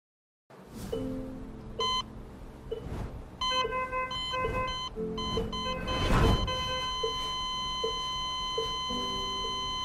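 Hospital heart-monitor sound effect: irregular electronic beeps that merge into one continuous flatline tone about six seconds in, the sign of the patient's heart stopping. Steady lower blips and a low background run beneath, and a noisy swell peaks just before the flatline.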